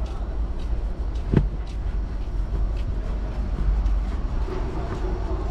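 A car seat cover being pulled and pressed down over a seat: light rustles and clicks over a steady low rumble, with one thump about a second and a half in.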